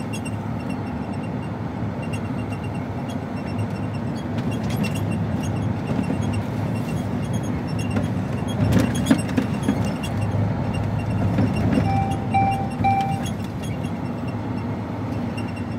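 Steady engine and road noise heard inside the cab of a container HGV on the move, with a short cluster of knocks and rattles about nine seconds in. Near the end come three short, evenly spaced electronic beeps.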